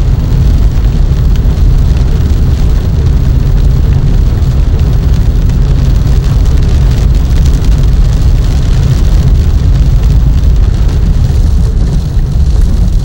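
Hurricane winds blowing across a camcorder microphone, a loud, steady low rumble with rain mixed in.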